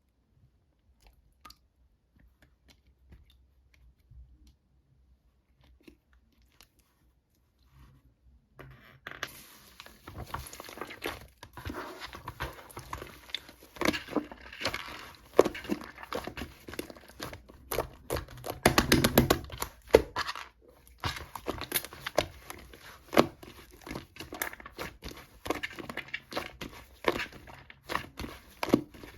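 Slime being played with by hand: a few faint clicks at first, then from about a third of the way in, continuous irregular crackling and popping, with louder pops here and there.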